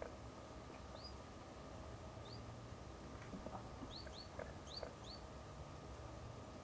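Small bird giving short, high, upward-sliding chirps: single ones about one and two seconds in, then a quick run of four about four seconds in, over a faint low hum.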